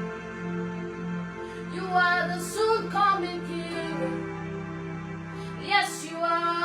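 Gospel worship music: a woman singing a slow, drawn-out melody over sustained accompaniment chords.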